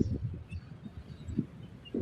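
Wind buffeting the microphone: irregular low rumbles and thumps, the strongest right at the start and another about a second and a half in.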